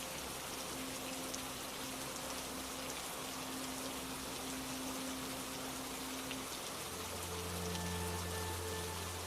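Steady rain falling, an even hiss of many drops. Underneath, soft music of long held notes, the chord changing about seven seconds in to a deeper low note.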